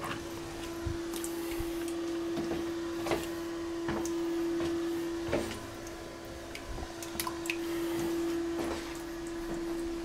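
Toilet cistern refilling after a flush, its fill valve giving a steady single-pitched hum over a faint hiss of running water, with a few light handling knocks.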